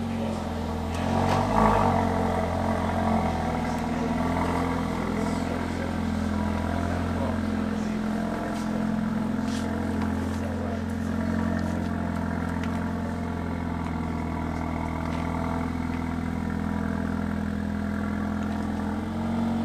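A Mercedes A45 AMG's turbocharged 2.0-litre four-cylinder running at low revs as the car creeps slowly along, a steady low engine note with a brief louder burst about two seconds in.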